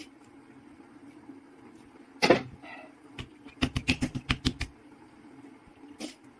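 Kitchen knife cutting a rolled dough log into pieces on a silicone mat, the blade knocking the counter beneath. One loud knock, then a quick run of about nine knocks, then a single knock near the end.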